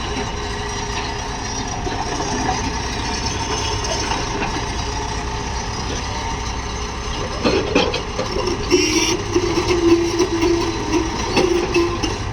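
Backhoe loader's diesel engine running steadily. It gets louder and more uneven about seven and a half seconds in, and a steady higher whine holds from about nine seconds in.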